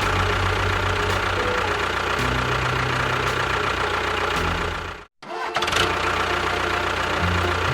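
An engine running steadily. It cuts out abruptly for a moment about five seconds in, then carries on.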